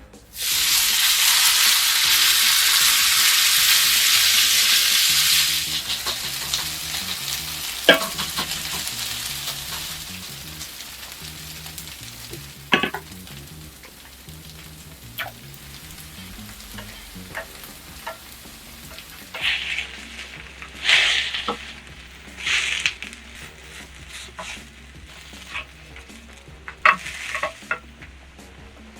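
Potato pancake batter frying in hot oil in a pan: a loud sizzle starts suddenly, drops after about five seconds and settles into a quieter sizzle. A few sharp clicks and brief louder sizzles come later.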